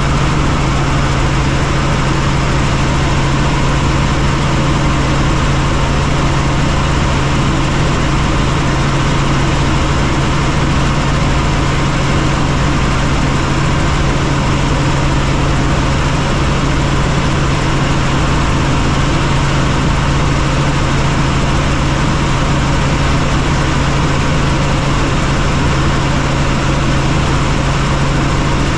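Helicopter in flight: a loud, steady drone of rotor and turbine, with a strong low hum under a broad rushing noise.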